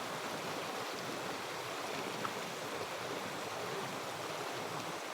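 Rain-swollen river rushing steadily, a constant even rush of fast-flowing floodwater.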